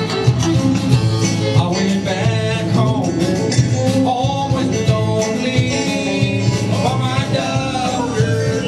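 Live band playing a song: electric and acoustic guitars, bass guitar and drums, with a man singing lead.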